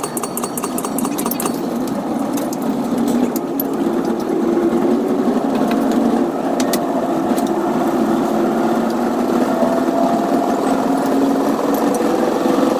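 Caltrain commuter train on the move, heard from the leading cab car as it pulls away from a station: a steady rumble of wheels on track with a low hum that drifts up in pitch and grows louder about four seconds in. A rapid, regular ticking dies away in the first second and a half.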